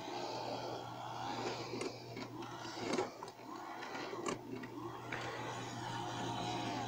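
Piko H0 model E93 electric locomotive running along the track, its small electric motor and gears whirring with a whine that rises and falls in pitch, with a few sharp clicks about two, three and four seconds in. The freshly repaired drive runs smoothly; the owner calls its running soft.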